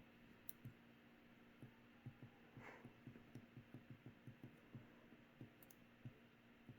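Near silence: room tone with a faint steady hum and scattered soft, irregular low taps.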